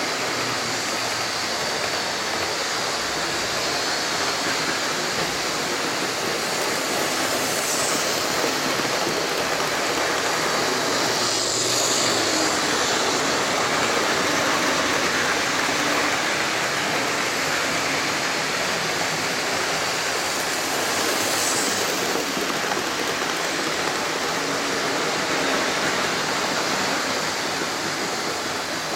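OO gauge model trains running on the layout: a steady rattling rumble of wagon wheels on the rails, a little louder about halfway through as a rake of coal hopper wagons passes close by.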